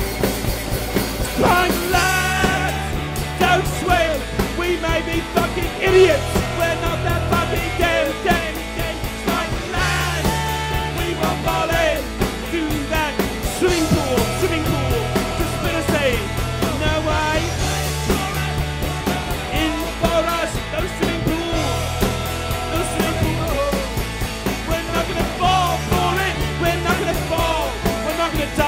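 Rock song with singing over drums and a bass line that changes every couple of seconds, in a steady beat.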